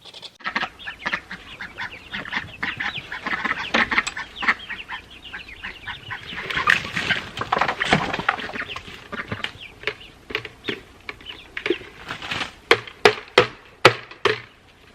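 Backyard poultry calling: many short overlapping squawks and clucks, with a run of sharper, louder single calls near the end.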